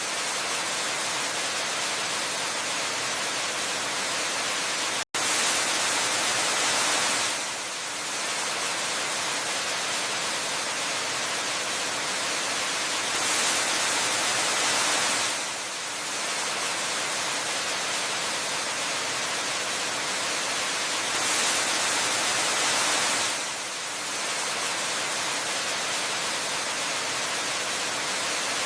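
Steady rush of a waterfall, an even hiss of falling water that swells and eases about every eight seconds. About five seconds in, the sound cuts out completely for a split second.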